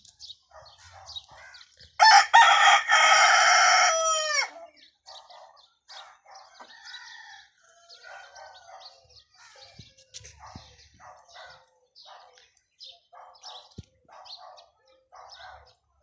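A desi rooster crows once, loud, about two seconds in, a call of about two and a half seconds that drops in pitch at its end. Hens cluck softly in short calls throughout.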